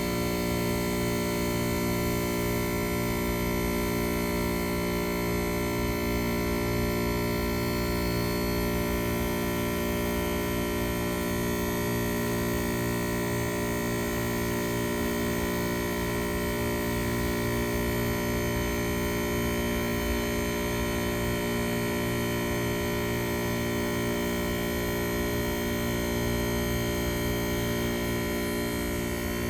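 Copeland compressor of a 1999 Carrier Cube (38YCC) heat pump running during its defrost cycle with a steady drone: a low hum carrying a stack of steady tones.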